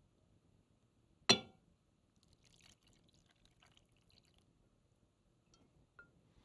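One sharp clink against a glass mixing bowl about a second in, then faint pouring and stirring as warm gelatin mixture is poured from a stainless saucepan into thick chocolate pudding and whisked in.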